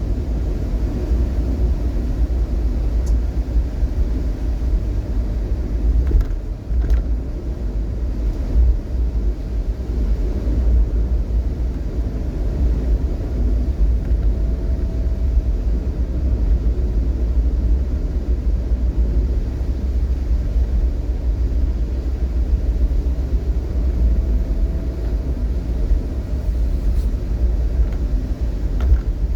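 Steady low rumble of a vehicle on the move: road and engine noise.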